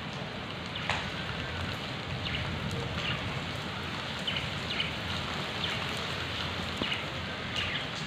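Steady rain falling on a wet paved courtyard, with short high budgerigar chirps about once a second.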